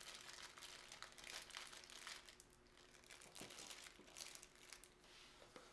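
Faint, irregular crinkling of a clear plastic bag of plastic camera mounts as it is handled and set down.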